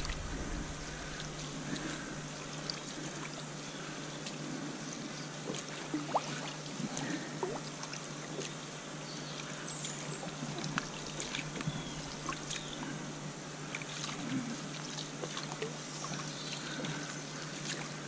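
Garden pond water trickling and lapping, with scattered small splashes and ticks over a low steady hum.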